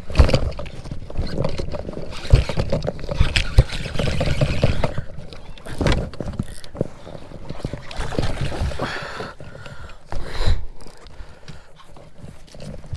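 Angler reeling in on a baitcasting reel from a kayak: irregular knocks, bumps and water splashes from handling the rod and boat, over a rumbling noise.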